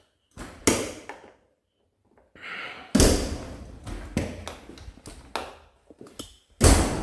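A series of irregular knocks and thuds, two of them much louder than the rest, with a short ring after the loud ones in a small hard room.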